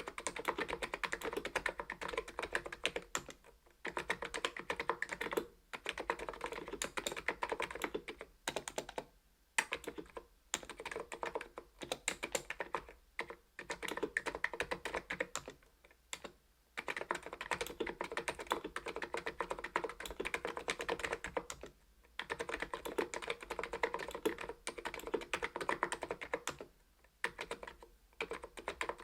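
Fast, continuous typing on an ABKO KN01 keyboard with stock 45 g electro-capacitive switches, broken by brief pauses every few seconds.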